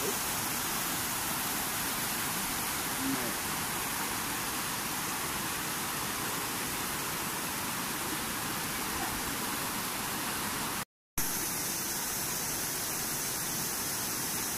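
Shallow river running fast over rocks and small rapids: a steady hiss of rushing water. The sound breaks off for a split second near the end, then carries on as before.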